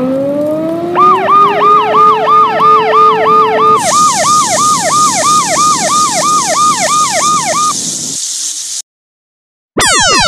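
Emergency-vehicle siren sound effect. It begins with a rising wind-up tone, then a fast yelp that warbles about three times a second for several seconds, with a hiss over its middle part. It stops abruptly, and after a brief silence a bundle of falling whistle-like sweeps starts near the end.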